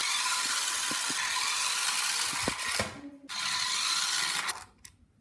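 Small electric motor and plastic gears of a 1:24 scale RC toy car running with a steady high-pitched mechanical whir as it drives. It cuts out briefly about three seconds in, starts again, then stops near the end with a couple of clicks.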